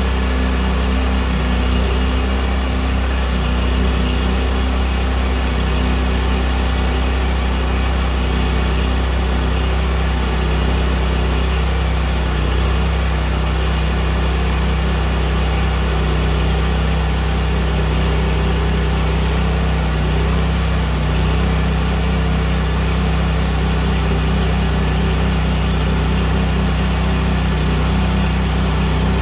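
Engine of a Big Red XP portable bandsaw mill running at a steady speed while its band blade saws lengthwise through an oak log.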